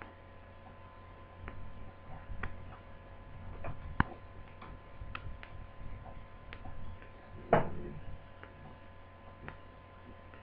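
Small clicks and taps of a screwdriver turning screws into a laptop's screen mounting. There is a sharp click about four seconds in and a louder knock near the end, over a steady faint hum.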